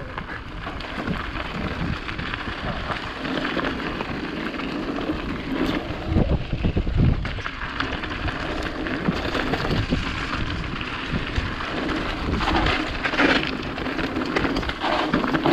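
Mountain bike rolling fast over a loose gravel track: the tyres crunch on the stones and the bike rattles, in a continuous noisy clatter full of small knocks, with low rumble on the microphone.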